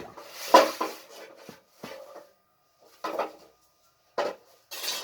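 Metal parts of a gas stove being handled and set in place: a few short clanks and scrapes, the loudest about half a second in.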